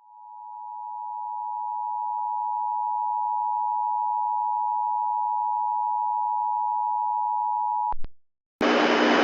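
A steady electronic sine tone near 1 kHz, fading in over the first two seconds and held unchanged, cuts off with a click about eight seconds in. After a short silence, a loud hiss of static with a low hum starts near the end.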